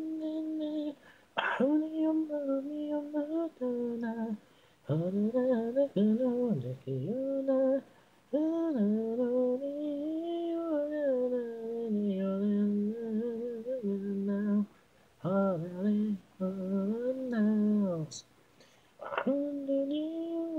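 Unaccompanied singing voice, the isolated vocal line of a pop song with no instruments: held and bending sung notes in phrases, with short breaks between them.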